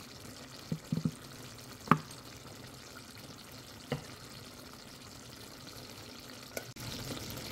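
Bean-and-eggplant curry simmering in a frying pan: a faint steady sizzle broken by a few small pops.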